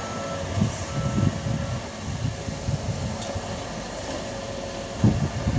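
Heavy diesel earthmoving machinery working a gravel pit: a steady low engine rumble with a faint, steady whine above it.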